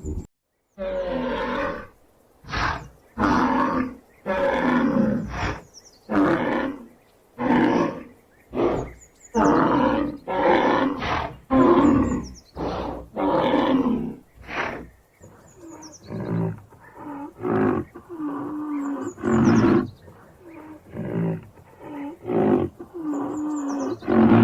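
Rhinoceros calling over and over: a quick series of loud, pitched roaring calls, each about half a second to a second and a half long.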